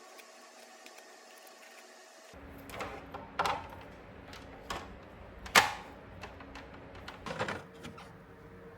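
Scattered short clicks and light knocks of objects being handled, with a few brief scraping or brushing sounds; the sharpest click comes about midway.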